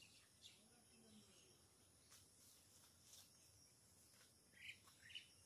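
Near silence: faint steady insect buzzing, with a couple of faint high chirps near the end.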